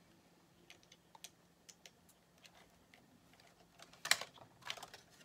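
Light plastic clicks and taps from fingers handling the small parts and wiring of an Axial SCX-24 1/24-scale RC crawler, then a louder clatter about four seconds in as the truck is lifted and handled.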